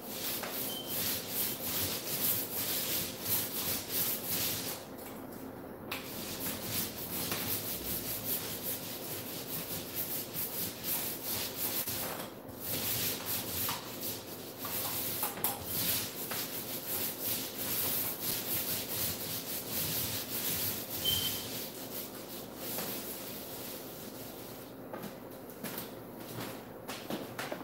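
Paint roller rolling thick screen paint onto a wall, a steady run of back-and-forth rolling strokes with brief breaks about five, twelve and twenty-five seconds in.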